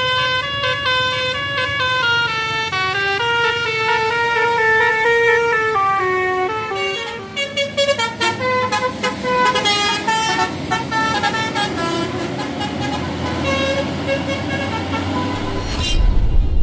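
Telolet basuri multi-tone bus horn playing a melody, several notes sounding together and stepping up and down in pitch. In the second half the notes turn short and choppy. A loud low rumble comes in near the end.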